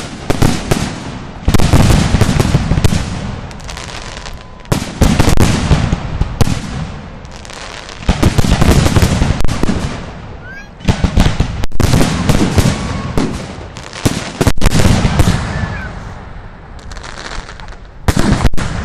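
Aerial firework shells bursting in rapid volleys: a dense crackle of bangs that swells in waves every two to three seconds, with quieter crackling between.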